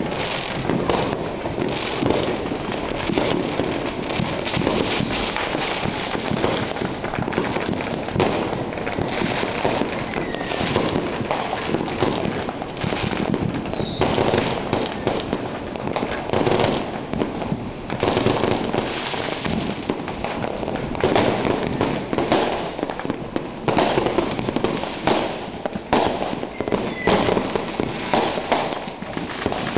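Dense, continuous crackling and popping of fireworks and firecrackers set off close by, many bangs overlapping with no break.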